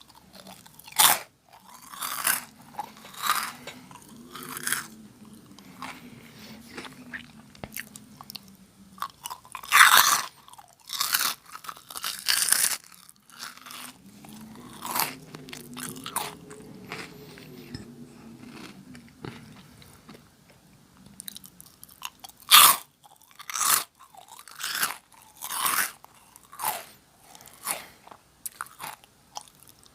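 Close-miked crunching and chewing of Jagalchi, a crisp fried snack, with sharp bites and crunches at irregular intervals; two bites, about ten seconds in and near twenty-two seconds, are the loudest.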